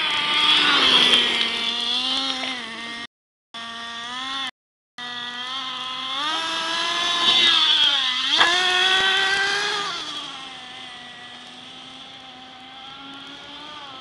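Traxxas Revo 3.3's nitro two-stroke glow engine revving up and down as the RC truck drives, with its pitch dropping sharply and climbing back about eight seconds in. It settles lower and quieter near the end. The sound cuts out completely twice, briefly, a few seconds in.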